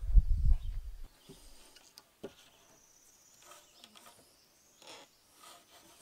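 Dull low thumps from a peeled spruce log being shifted about on bare dirt, dying away about a second in. After that there are only a few faint wooden clicks.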